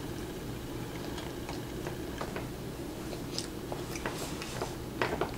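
Soft, irregular clicks and smacks of chewing, with a few sharper clicks near the end.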